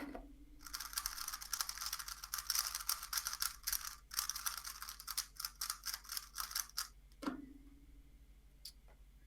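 A 3x3 speedcube being turned very fast through a full solve: a dense run of clicking layer turns lasting about six seconds that stops abruptly. A brief falling tone follows.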